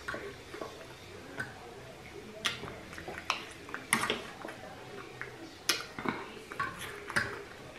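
Fork and knife clinking and scraping on a plate while food is cut and picked up: short, irregular clicks about every second.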